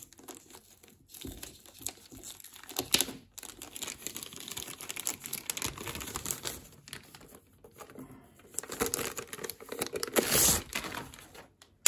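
Plastic wrapping crinkling and rustling in irregular bursts as it is pulled off a network switch during unpacking, with a louder burst about ten seconds in.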